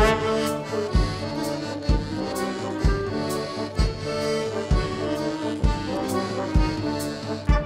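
A chamber ensemble with an accordion playing. The accordion carries the tune over held wind chords. A bass drum beats about once a second, with light cymbal strokes between the beats.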